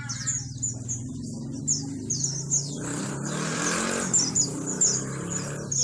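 Many small caged birds chirping, quick high chirps over and over, over the steady hum of a motor vehicle's engine, with a louder rush of vehicle noise in the middle as it passes.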